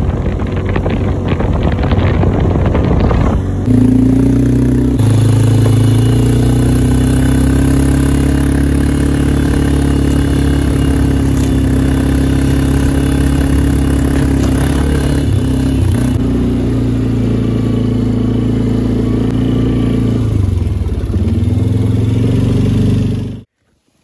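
An ATV's engine running at a steady speed while riding over snow, with wind rushing on the microphone over the first few seconds. The engine note dips and recovers briefly a couple of times, then cuts off abruptly just before the end.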